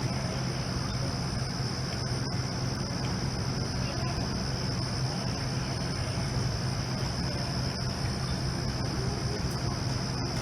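Fire truck engine idling with a steady low hum, while crickets trill steadily in the background.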